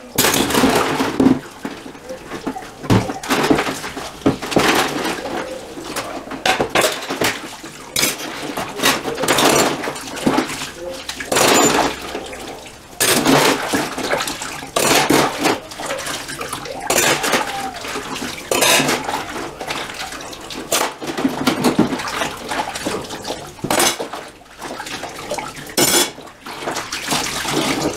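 Dishes being washed by hand in a stainless steel sink: water swishing and splashing, with irregular clinks and clatter of cutlery, mugs and plates against each other and the metal basin.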